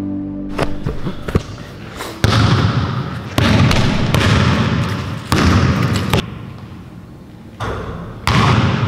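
Basketball thudding on a hard gym floor: a run of loud thuds one to two seconds apart, each followed by a long echo in the large, empty gym.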